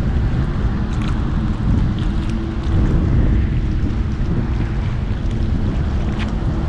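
Wind buffeting the microphone: a steady low rumble that swells and eases, with a faint hum underneath and a few light clicks.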